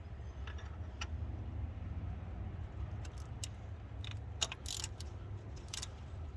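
Scattered sharp metallic clicks from a universal stud extractor being turned onto a broken bolt, a few early on and coming more often from about three seconds in. A steady low hum runs underneath.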